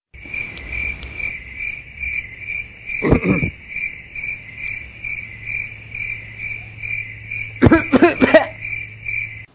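Steady cricket-like chirping, about two and a half even chirps a second, that stops abruptly at the end. A short voice sound comes about three seconds in, and a louder burst of voice sounds near the end.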